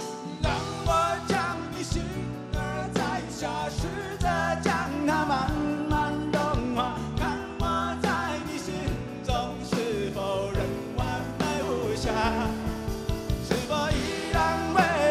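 Live rock band playing an instrumental stretch of a ballad: regular drum hits under held chords and a wavering lead melody, with the full band coming in right at the start.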